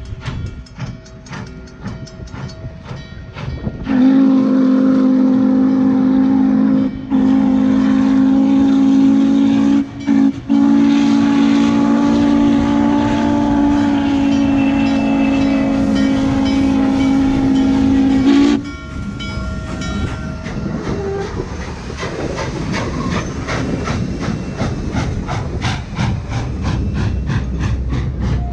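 Norfolk & Western 611, a 4-8-4 steam locomotive, working a passenger train past at close range: rhythmic exhaust beats at first, then its steam whistle blown loud and long, a chord of several tones lasting about fourteen seconds with a few brief breaks. After the whistle stops, the passenger cars roll by with a rhythmic clatter of wheels over the rail joints.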